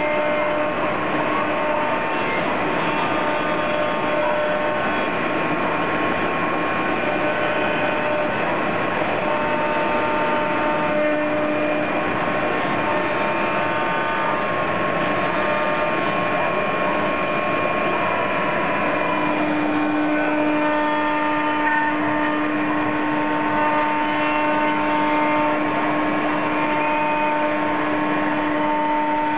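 CNC router spindle cutting oak, a steady dense machine noise with whining tones that shift as the cutter moves through the wood. A lower hum grows stronger about two-thirds of the way in.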